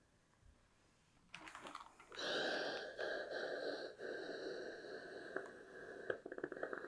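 Steam iron hissing as it presses a folded quarter-inch shirt hem, starting about two seconds in and slowly fading. A quick run of light clicks follows near the end.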